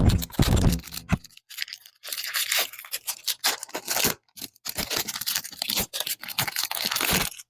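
Foil wrapper of a Pokémon card booster pack crinkling and tearing open in bursts of crackle, after a dull handling bump at the start.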